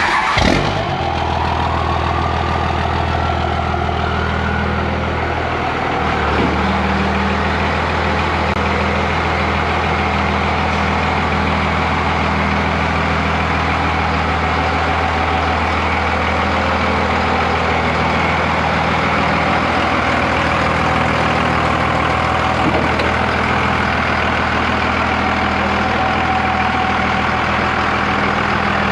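5.9 Cummins inline-six turbo diesel idling steadily, with a thump right at the start and a faint rising whine over the next few seconds.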